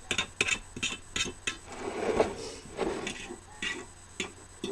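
Hands pressing ground turkey meatloaf mixture into a metal loaf pan, with light irregular taps and clicks against the pan and a few soft scuffs.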